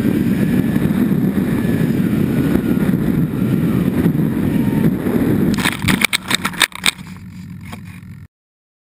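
Onboard-camera sound of a twin-engine RC model plane landing on grass: a steady rush of wind and motor noise, then a quick run of sharp knocks and clatter about six seconds in, after which the sound drops much quieter and cuts to silence near the end.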